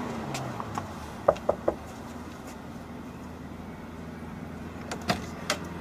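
Three quick knocks on a wooden front door, with a few fainter clicks near the end, over a steady low background hum.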